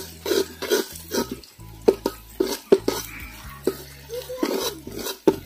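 Metal spatula stirring and scraping sliced onions frying in oil in an aluminium handi, in repeated irregular strokes about two or three a second, with a light sizzle under them.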